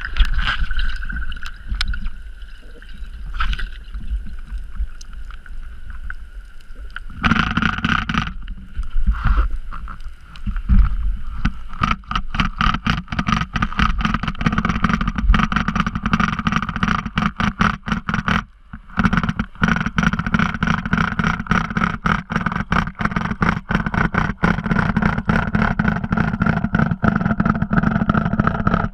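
Underwater noise heard through the water: a low rumble at first, then from about seven seconds a motorboat's engine and propeller pulsing rapidly and steadily, cutting out briefly about two-thirds of the way through.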